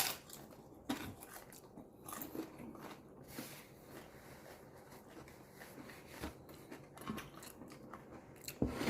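Crisp fried-tortilla tostadas topped with potato and chorizo being bitten and chewed, with scattered quiet crunches every second or so.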